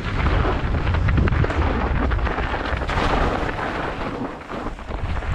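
Rumble and rattle of an enduro mountain bike descending a rough, snowy, muddy trail, with wind buffeting the helmet-mounted camera's microphone. The noise eases briefly near the end.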